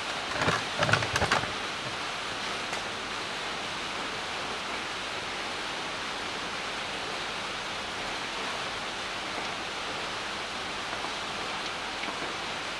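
A few sharp knocks and clicks in the first second and a half, then a steady even hiss, while the drain plug of a car's manual gearbox is unscrewed by hand.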